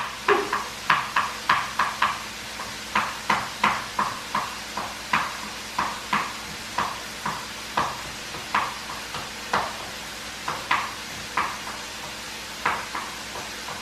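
Kitchen knife chopping garlic on a cutting board: a series of sharp knocks, about two a second, louder for the first couple of seconds and softer after.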